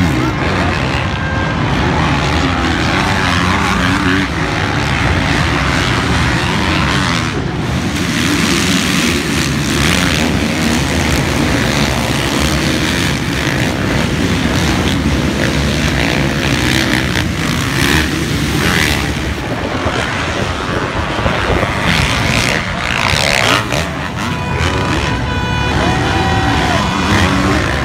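Motocross bikes' engines running hard and revving as they race around a dirt track, several bikes at once in a continuous loud din.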